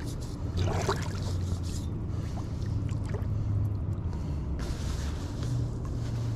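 Kayak being paddled: paddle strokes in the water with trickling and dripping, over a steady low rumble, and a stronger rush of water noise about four and a half seconds in.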